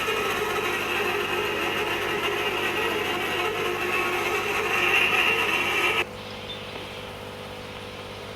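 Steady machinery noise that drops off abruptly about six seconds in, leaving a quieter steady hum.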